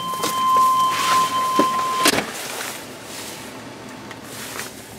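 Getting into a Chevrolet pickup cab: a steady high warning tone from the truck sounds while the door is open, and knocks and a door slam about two seconds in cut the tone off. The outside noise is muffled from then on.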